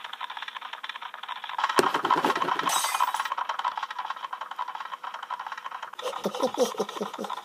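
A crash about two seconds in, fitting a glass fishbowl falling and breaking, with a sharp clatter near three seconds. From about six seconds in, a quick run of pattering footsteps, about four or five a second.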